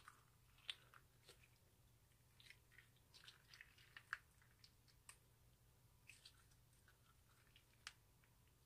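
Clear slime mixed with sequins being squeezed and stretched by hand, giving faint, irregular sticky clicks and small pops a few times a second.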